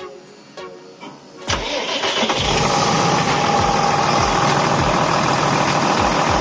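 A motor engine running loudly and steadily, cutting in suddenly about a second and a half in, after a short stretch of background music.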